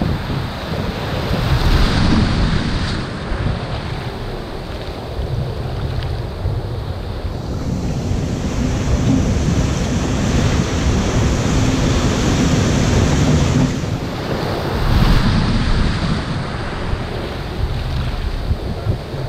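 Ocean surf breaking and foaming water rushing around a kayak, with wind buffeting the microphone. The rushing noise swells louder and eases off several times.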